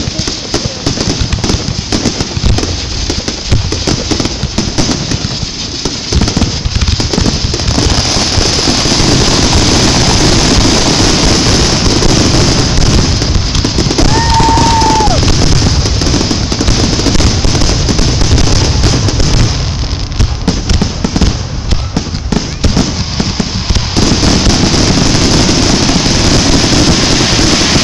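Aerial fireworks going off in quick succession: many overlapping booms and crackling bursts, densest about a third of the way in and again near the end.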